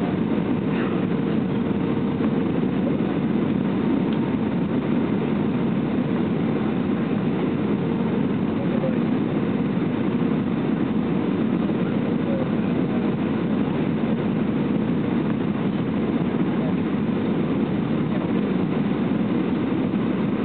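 Steady roar of an Airbus A320's engines and rushing air, heard from inside the passenger cabin on landing approach with the flaps extended. A faint steady hum fades out about a third of the way through.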